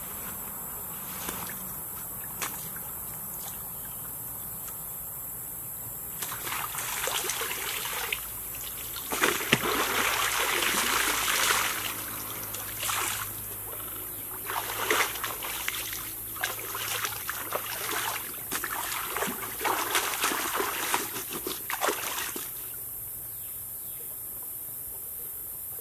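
Shallow stream water splashing and sloshing in irregular bouts as a person rinses a cloth and moves about in it, starting about six seconds in, loudest a few seconds later, and stopping shortly before the end.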